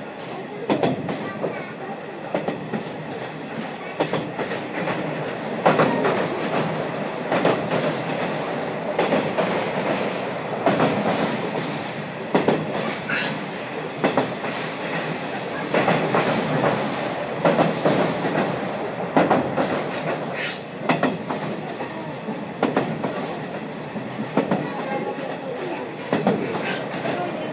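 Running sound inside a JNR 50-series passenger coach, recorded with a window slightly open: wheels clacking irregularly over rail joints, with a couple of brief high squeals.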